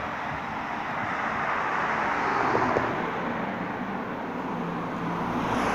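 Road traffic: cars passing on the road alongside, a steady rush of tyres and engines that swells around two seconds in and again near the end.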